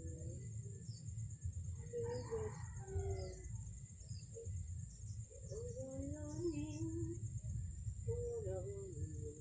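A background song: a wavering melodic voice in short phrases, over a steady high-pitched insect drone and a low rumble.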